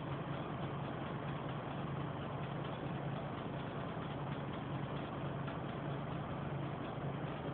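Optare Solo bus running with a steady low engine hum and a strange clanging noise: faint, irregular metallic knocks over the hum.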